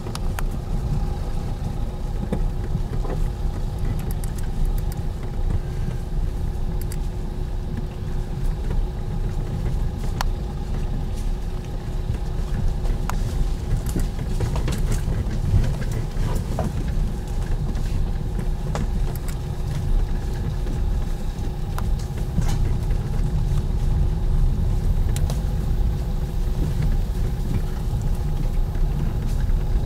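Dacia Duster driving slowly along a bumpy forest dirt track, heard from inside the cabin: a steady low engine and tyre rumble with a constant hum, and scattered light knocks and clicks over the rough ground.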